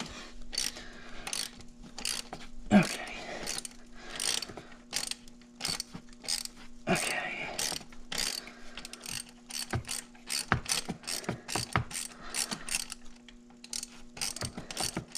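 Hand socket ratchet clicking in short, irregular runs of strokes as it is worked back and forth, loosening a spark plug.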